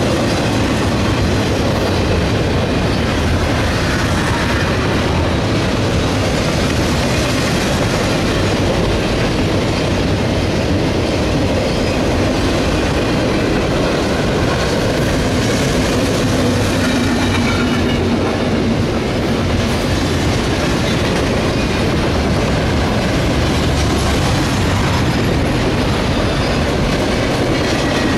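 CSX double-stack intermodal train rolling past: a steady rumble and clatter of steel wheels on the rails as the container cars go by.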